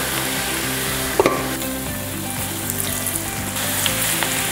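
Okra pieces coated in a gram-flour and spice mix deep-frying in very hot oil in a pan: a steady sizzle with a few sharper crackles.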